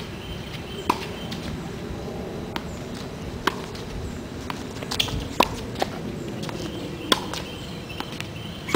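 Tennis rally: the sharp pops of racquets striking a tennis ball and the ball bouncing on the hard court, about ten of them at uneven intervals, the strongest a little past the middle, over a steady low background noise.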